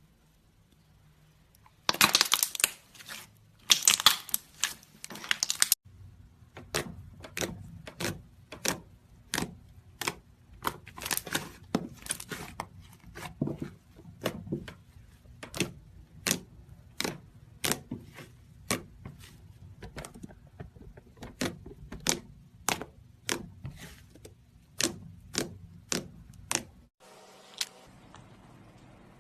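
Slime being handled: a few seconds of dense, loud crackling, then a long, even run of sharp clicking pops, about one and a half a second, as the slime is pressed and popped. Near the end the clicking stops and only a faint hum remains.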